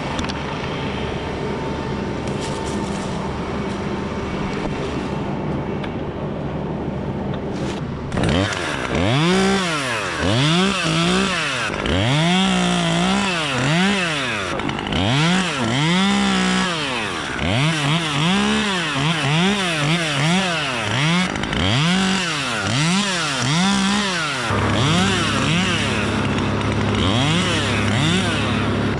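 Two-stroke chainsaw running at a steady low speed, then from about eight seconds in revved up and down in quick repeated surges, about one a second, before settling back to a steadier run near the end.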